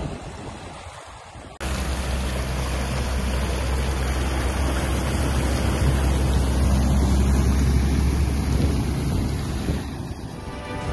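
Toyota Land Cruiser 60 series ploughing through a river: water rushing and splashing around the wheels and body over a deep steady rumble. It starts abruptly about one and a half seconds in.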